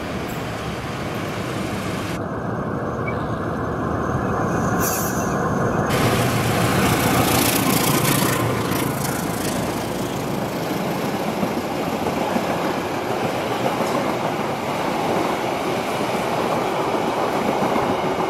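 Diesel-hauled passenger train passing through a station: the locomotive and the coaches rolling over the rails. It grows louder about four to six seconds in and holds steady as the carriages go by.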